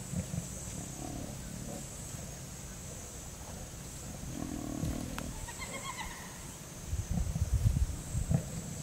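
A lioness growling low at approaching spotted hyenas, loudest in a run of rough growls in the last two seconds. A short call of several quick higher notes comes in the middle.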